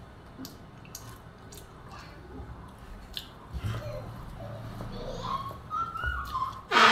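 A person eating rice with her fingers: soft chewing and small wet mouth clicks, with faint squishing of rice mixed by hand. A brief loud burst of voice comes right at the end.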